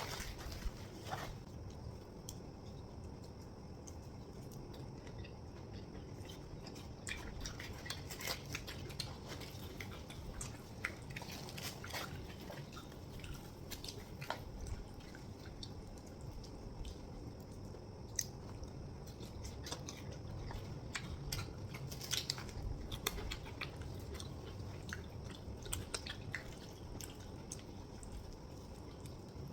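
Two people chewing and biting chhole bhature (fried bhatura bread with spiced chickpea curry). Many small, sharp mouth clicks run throughout over a faint low hum.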